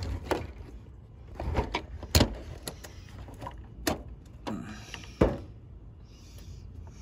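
Handling noise from work on plastic headlight and bracket parts: scattered clicks and knocks, the loudest about two seconds in and just after five seconds, then quieter near the end.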